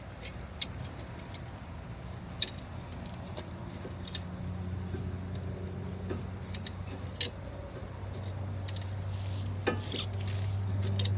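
Scattered light metallic clicks and taps as a C-clamp is screwed in to compress the brake caliper piston. A low steady hum comes in about four seconds in and grows louder near the end.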